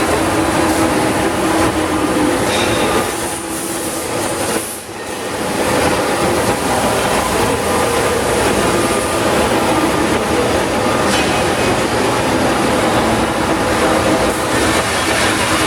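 Oxy-fuel cutting torch running on a CNC cutting table, a loud steady rushing noise as it cuts thick steel. The sound dips briefly about four seconds in, then comes back at full strength.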